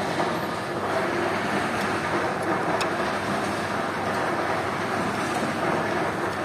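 Steady outdoor background noise: a continuous, even hum of distant road traffic.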